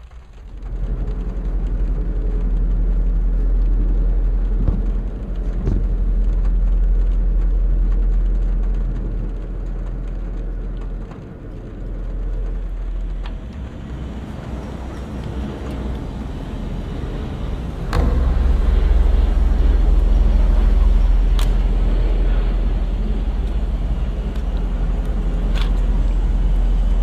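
A motor vehicle running with a steady low rumble. It gets louder about eighteen seconds in, and a few sharp knocks come through in the second half.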